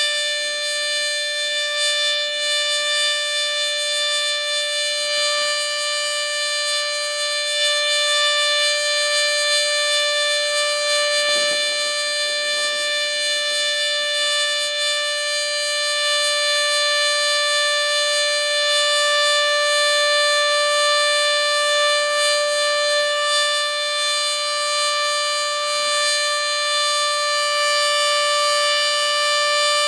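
Sterling 2V8 electromechanical warning siren sounding its steady Alert signal: one held pitch with strong overtones, not rising or falling.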